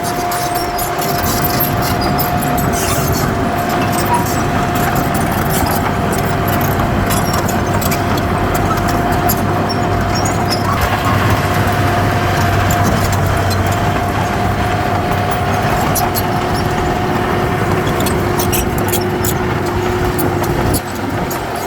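Heavy diesel earthmoving machinery running steadily: an engine drone with a steady whine above it and scattered light clicks. The level drops briefly about a second before the end.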